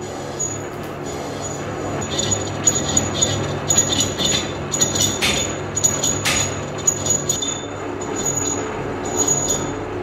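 A lathe running while its cutting tool resurfaces the face of a spinning clutch pressure plate: a steady low motor-and-belt hum, with irregular high-pitched metallic squeals and scrapes from the tool on the metal.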